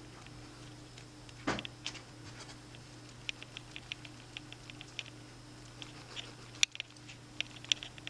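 An iPhone 5 rattling as it is shaken: light, quick clicks and knocks from inside the case, with a sharper click about a second and a half in and another after six seconds. The uploader says this rattle might be caused by a loose battery.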